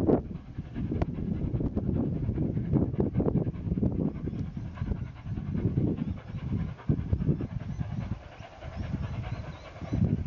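Distant exhaust of NSW 36 class 4-6-0 steam locomotive 3642 working its train: an uneven chuffing of about two beats a second.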